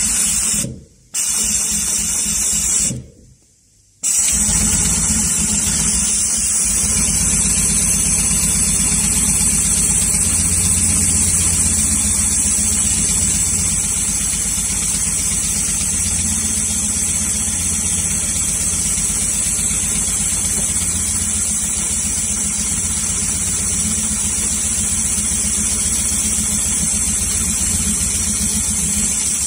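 HighTex 728-30PWW long-arm twin-needle triple-feed sewing machine stitching webbing tape onto tarpaulin edges, a steady rapid clatter of needles and feed. It runs in two short spurts with brief stops in the first few seconds, then runs continuously from about four seconds in.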